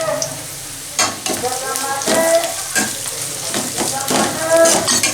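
Onions and chillies sizzling in hot oil while a metal spoon stirs and scrapes the pan, with repeated scraping strokes and short squeaks.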